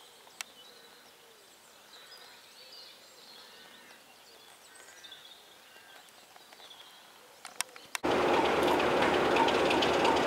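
Faint birdsong in quiet surroundings with a few small clicks, then about eight seconds in, a sudden switch to a train running loud and close, its wheels clicking over the rail joints.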